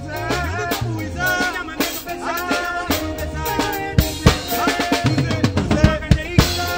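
Live band music: two male vocalists singing over a drum kit and band. The drum hits come through more sharply from about four seconds in.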